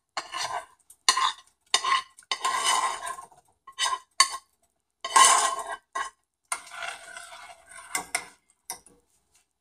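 A metal spoon clinking and scraping against cookware as tadka is emptied from a small pan into a stainless steel pressure cooker of dal and stirred in: a string of short, uneven clinks and scrapes, a few of them drawn out to about a second.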